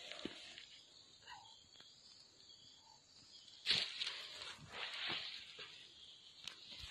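Rustling of sweet potato vines and loose soil being disturbed, with a sharper, louder rustle a little before four seconds in, followed by a few softer ones.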